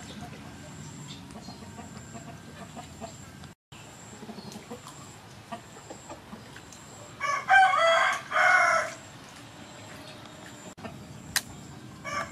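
A rooster crowing once, loud and in two parts, about seven seconds in.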